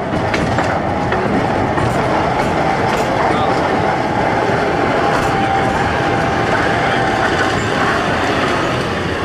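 Snowdon Mountain Railway rack train running along the track, with steady running noise and wheels clicking over rail joints and points in the first few seconds. A faint thin whine is held through the middle of the run.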